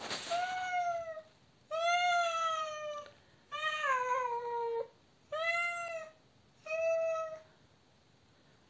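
Adult ginger cat crying out with five long meows, each about a second, with short gaps between; the third slides down in pitch at its end.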